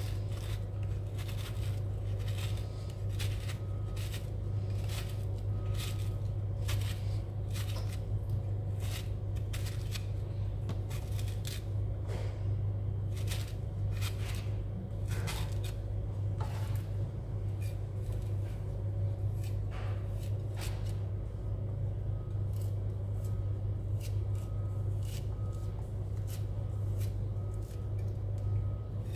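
Kitchen knife cutting the peel off a grapefruit: irregular crisp clicks and scrapes of the blade through the rind, over a steady low hum.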